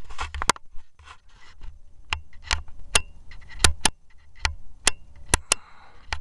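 A run of irregular sharp clicks and small taps over a low rumble, typical of handling noise from a rifle and scope-mounted camera while the shooter holds his aim.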